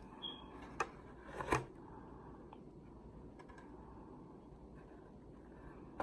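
Light handling of takeout food containers: a sharp click a little under a second in and a brief rustle about a second and a half in, then a few faint ticks over quiet room tone.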